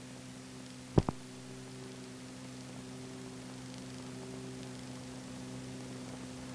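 Steady electrical hum, a stack of low even tones over a light hiss, with a single sharp click about a second in.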